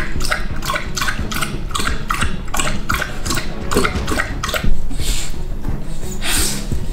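An American Bully lapping water from a plastic bowl in a steady rhythm of about three laps a second. The lapping stops about four and a half seconds in, followed by a sharp thump and a few short rustling sounds.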